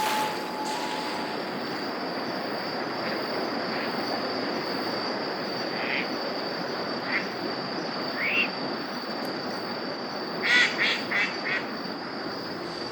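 Eastern spot-billed ducks calling: a few short rising calls, then a quick run of four or five quacks near the end. A steady high tone and a constant hiss run underneath.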